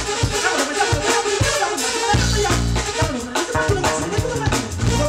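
Live jazz band playing, with a drum kit keeping time, a bass line and a melody line over them.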